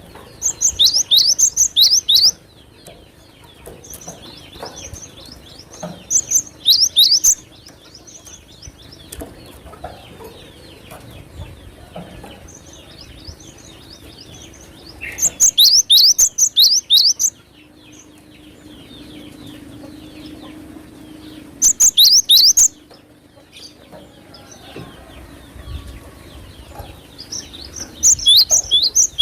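Cinereous tit (glatik batu) singing in loud bursts of rapid, quickly repeated high notes, each burst lasting a second or two. There are five bursts, with softer chirping between them.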